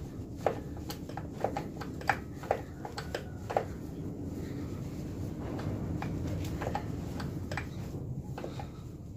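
Sharp clicks and light metallic knocks of engine parts and tools being handled during workshop disassembly, many in the first four seconds and a few more later, over a steady low rumble.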